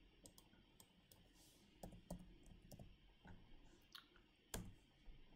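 Faint, irregular clicks of a computer mouse and keyboard, about eight in all, against quiet room tone while an extrude distance is entered.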